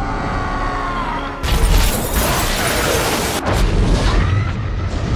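Movie soundtrack: orchestral score, then a huge explosion boom about a second and a half in. A second rumbling blast follows near the end.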